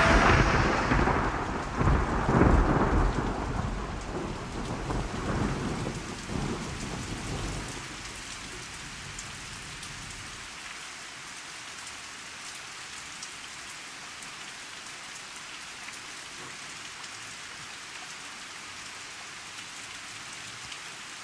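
Thunder rumbling over steady rain: a swell of thunder about two seconds in, rolling and dying away by about ten seconds, then only the even hiss of rain.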